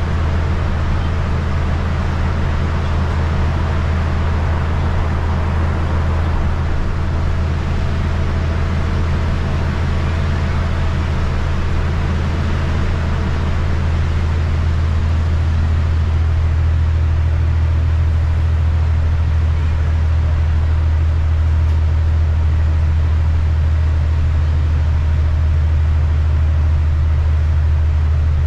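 Interior of a city bus under way: the engine's steady low drone with road noise from the tyres on wet pavement, getting a little louder about halfway through.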